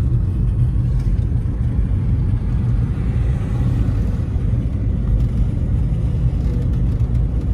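Steady low rumble of a car's engine and road noise, heard from inside the cabin of the moving car.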